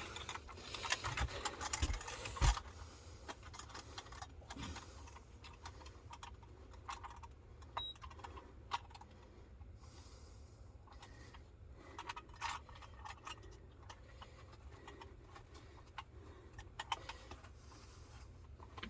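Scattered small clicks, clinks and rustles of fishing gear being handled. They are busier for the first two and a half seconds, then come only now and then.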